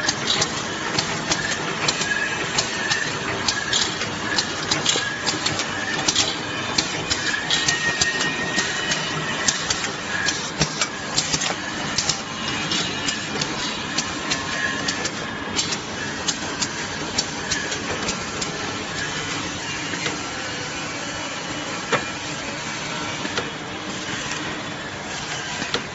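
Popcorn can packaging machinery running: a steady mechanical din with frequent sharp clicks and clatter, which thin out after about the middle.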